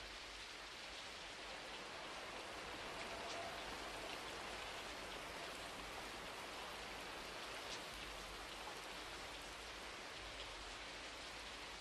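Steady rain falling, with a few louder single drips standing out.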